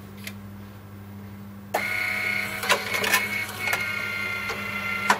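Wurlitzer One More Time CD jukebox's disc-changer mechanism starting up about two seconds in: a motor running with a steady high whine, broken by several clicks and clunks as the changer lifts and turns a CD toward the laser for play. A steady low hum runs underneath.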